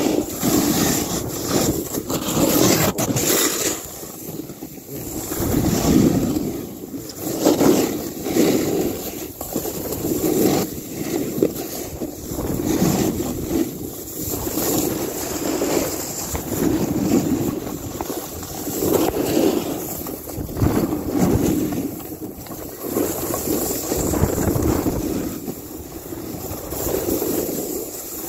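Snowboard sliding through snow, a steady scraping that swells with each turn about every two seconds, with wind rumbling on the microphone.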